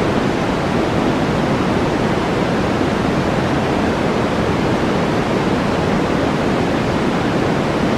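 A loud, steady rushing noise with no tone in it, heaviest in the low and middle range, holding at one level throughout.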